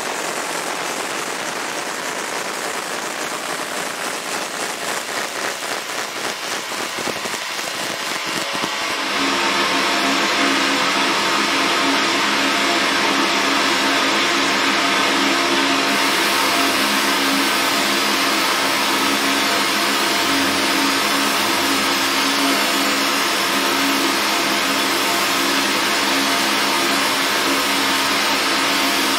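Fiber laser engraving machine at work on a metal slide: a rapid, crackling buzz, then about nine seconds in a louder steady whirring hum with a drone of several held tones.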